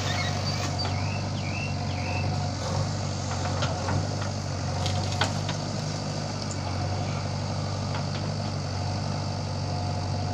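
Diesel engines running steadily: a Swaraj 744 FE three-cylinder tractor idling and a JCB 3DX backhoe loader working its arm as it loads soil into the tractor's trolley. A few sharp knocks stand out over the steady hum.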